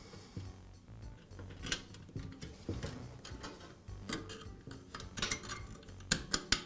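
Coiled-wire heater element clinking and rattling against its sheet-metal frame and hooks as it is worked around them by hand: scattered light metallic clicks, with a quick run of sharper ones near the end.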